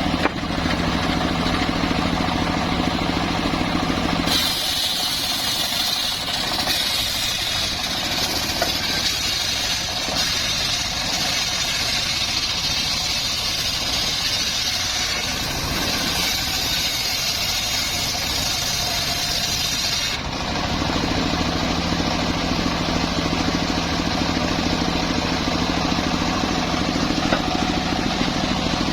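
An engine-driven saw runs steadily, then about four seconds in it changes abruptly to a high-pitched whine as it saws through timber. About sixteen seconds later it drops back to a steady engine run.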